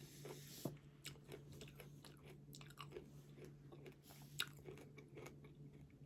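Faint chewing of fresh strawberries: soft, irregular clicks and smacks of the mouth, with a sharper click about four seconds in.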